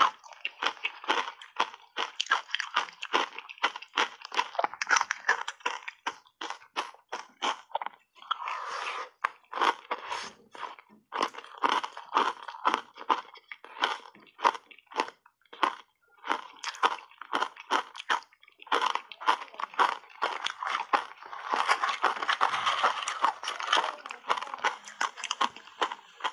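Close-miked crunching of ice chunks coated in matcha powder as they are bitten and chewed: a fast run of crisp crunches, several a second, with a few short pauses.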